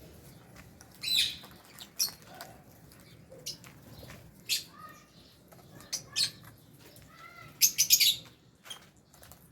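Lovebirds giving short, sharp, high-pitched chirps, spaced out at first and then a quick run of several loud chirps near the end.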